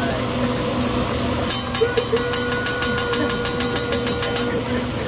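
Steady hiss of a hot teppanyaki griddle and the steaming onion volcano, then from about a second and a half in a rapid, evenly spaced clacking of metal spatulas tapped on the griddle, the hibachi chef's 'train' sound, with a steady high tone over the middle of it; the clacking stops shortly before the end.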